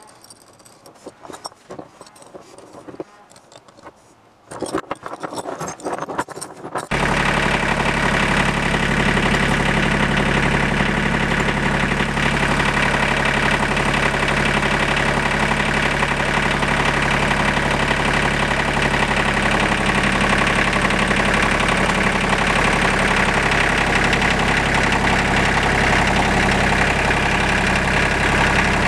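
Steel chain and hooks clinking as they are handled, then, from about seven seconds in, a compact tractor's engine running steadily as its front loader lifts a portable generator on a chain sling.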